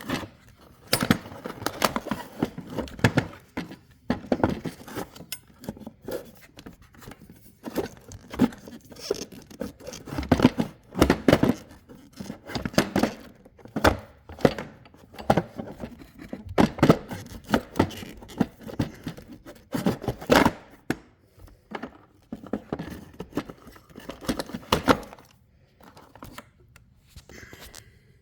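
Hands working in a plastic ride-on toy's battery compartment while fitting replacement batteries: irregular clicks, scrapes and rustling, thinning out near the end.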